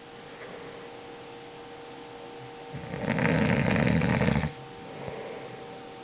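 A sleeping man snoring: one long snore starting a little under halfway in, with quiet breathing pauses before and after it. A faint steady hum runs underneath.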